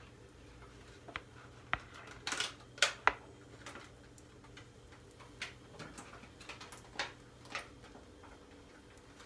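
A metal spoon scooping pancake batter, tapping and scraping against a plastic mixing bowl and a non-stick frying pan in scattered sharp clicks, the loudest two about three seconds in.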